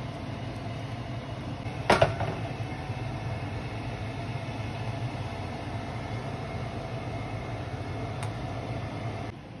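Steady low hum and hiss of kitchen background noise while sugar melts in a pan on low heat, with one sharp knock about two seconds in and a fainter click near the end. The hum drops away suddenly just before the end.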